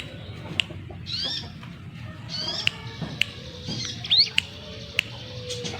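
Ciblek gunung (a mountain prinia) singing: a string of sharp, quick chirps and short sweeping whistles, one every half second to a second.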